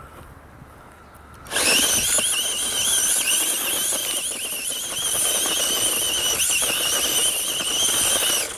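RC car's motor and drivetrain whining at speed, with its tyres scrabbling on loose gravel as it races and spins. It starts suddenly about a second and a half in and cuts off abruptly near the end.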